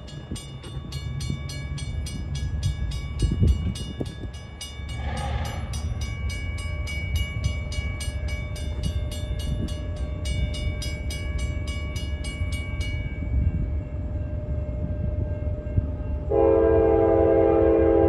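Railroad grade-crossing warning bells ringing about three strikes a second while the gate arms lower, stopping about two-thirds of the way through. A few seconds later the approaching train's locomotive air horn sounds a loud, steady chord of several notes, the loudest sound.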